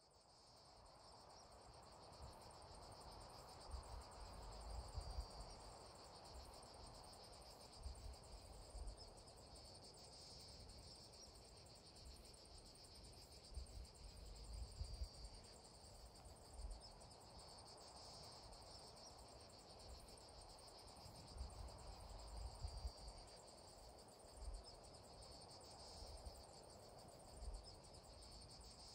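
Faint, steady chirring of insects, swelling slightly every few seconds, with irregular low rumbles underneath.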